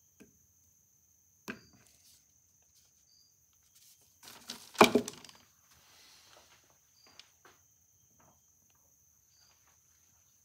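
Metal gramophone spring barrel being handled on a workbench: a few light clicks and knocks, and a louder knock and clatter about five seconds in, followed by small ticks.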